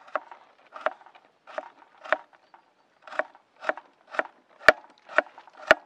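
Kitchen knife chopping a carrot on a wooden cutting board: about ten crisp chops, roughly two a second, the last few the sharpest.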